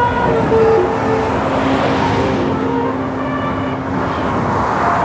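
Bus with a 'basuri' telolet musical air horn passing by: the horn's last few notes in the first second, then engine and road noise swelling as the bus goes past, with a low steady tone held for about three seconds.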